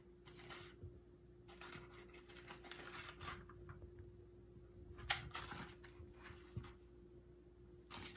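Kittens scampering and scuffling on a hardwood floor: irregular light scrabbling of paws and claws on the boards, with a sharper knock about five seconds in.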